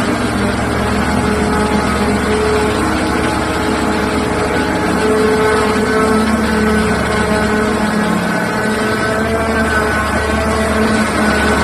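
Liebherr R9800 mining excavator's diesel engine running steadily, a heavy drone whose pitch wanders slightly up and down.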